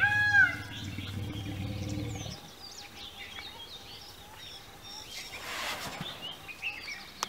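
Asian elephants calling: a few short, arched squeaks repeat in the first half second over a low rumble that stops about two seconds in. After that, small birds chirp.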